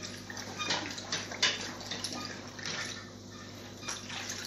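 Liquid sloshing, splashing and dripping as a soaked linen blazer is squeezed and swished by hand in a plastic bucket of dry-cleaning solution, in irregular splashes that are strongest in the first second and a half.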